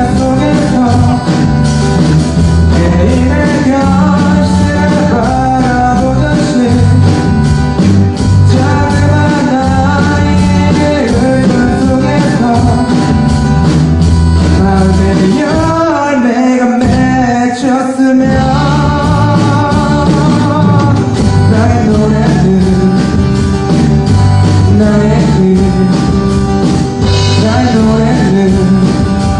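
A rock band playing live, with a singer over guitar, bass and drums. Just past halfway the bass and drums drop out for a couple of seconds, then the full band comes back in.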